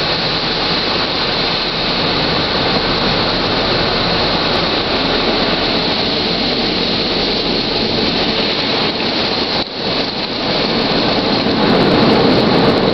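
Automatic car wash running, heard from inside the car: a steady, loud rush of water spray and machinery over the car, with a brief dip about ten seconds in.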